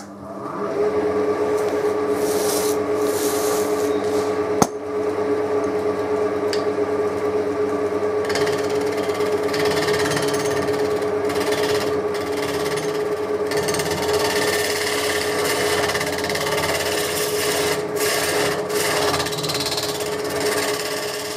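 Wood lathe running, a steady hum, with the rough noise of the spinning chestnut blank being worked by hand. It starts right at the beginning and goes on unbroken, with one sharp click about four and a half seconds in.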